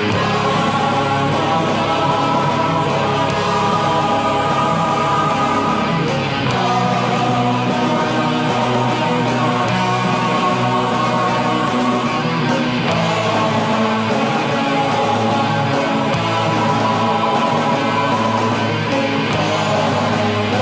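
Background music with guitar and singing, the chords changing about every six seconds.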